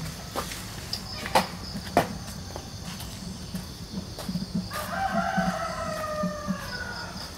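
A rooster crows once, starting about halfway through: one long call of about two seconds that falls slightly in pitch. Two sharp clicks stand out in the first two seconds.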